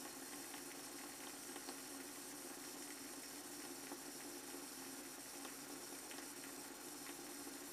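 Steady low background hiss with a faint hum, and over it the faint, scattered crackle of a shavette blade scraping through whiskers high on the cheek.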